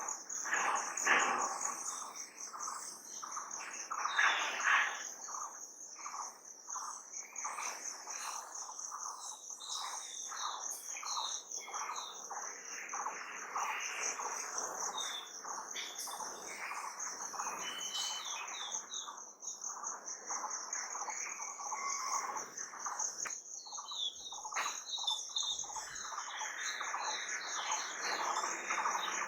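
Several birds chirping and calling over a continuous high, finely pulsing insect trill.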